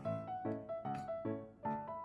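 Background music: a piano playing a melody with chords.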